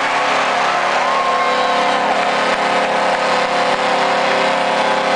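Arena goal horn sounding one long, steady blast over a cheering crowd, signalling a home-team goal.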